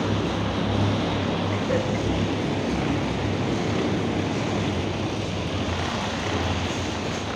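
Small wheels of a hard-shell suitcase rolling over a ribbed rubber floor, a steady loud rumble with a low hum underneath.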